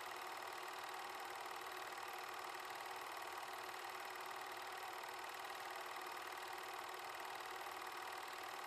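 An 8mm film projector running steadily, a constant mechanical whirr.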